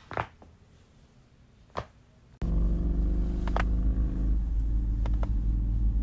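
Two sharp neck cracks, a person cracking her own neck by pushing her hand against her chin: one right at the start and another nearly two seconds later. Then a loud steady low rumble cuts in suddenly and takes over, with a couple of fainter cracks heard over it.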